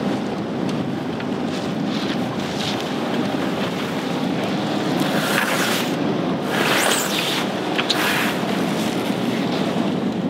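Wind on the microphone and sea rushing past the hull, with bursts of sail cloth rustling and flapping in the middle as a headsail is hoisted.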